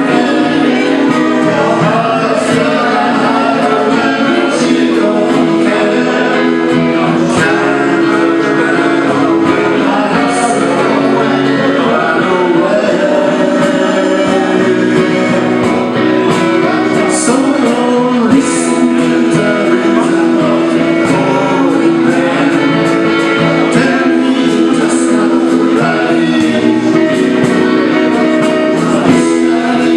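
A band playing a song, with a singing voice over guitar accompaniment, continuous and steady in loudness.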